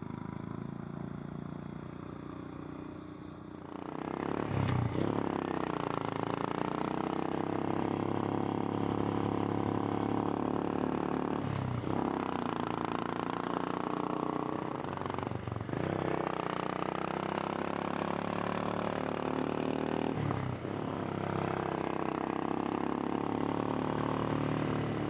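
Royal Enfield Himalayan's single-cylinder engine running under way while riding, heard from a microphone inside the rider's helmet along with wind rush. It gets louder about four seconds in, and the engine sound drops briefly four times.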